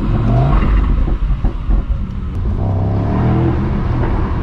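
Mercedes-AMG SL55's 4.0-litre twin-turbo V8 running and revving, with a deep exhaust rumble. It rises in pitch near the start and stays loud throughout.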